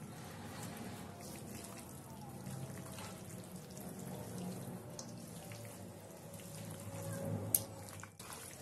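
Wet squelching and sloshing of a hand kneading marinated mutton pieces and sliced onions in a steel bowl, with a single sharp click near the end.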